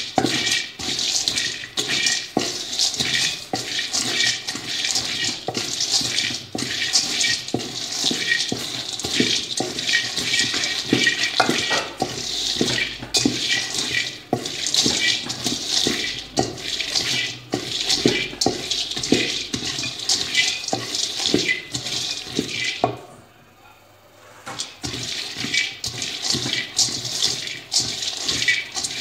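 Mixed nuts (cashews, almonds, pistachios, hazelnuts) rattling and scraping in a large metal pan as a wooden spatula stirs them, dry-roasting over a gas flame: a dense, continuous rustle full of small clicks. The stirring stops briefly about twenty-three seconds in, then starts again.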